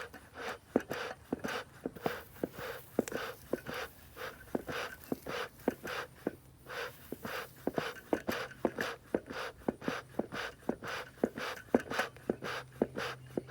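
Beehive smoker's bellows being pumped, pushing a breathy puff of air through the smouldering fuel about twice a second, with a sharp click on most strokes. This is the bellows fanning the hay and burlap to get the fire going.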